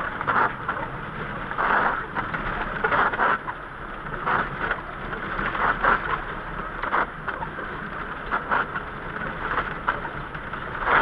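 Car cabin noise while driving on a wet road in light rain, with the windscreen wipers sweeping across the glass about every second and a half.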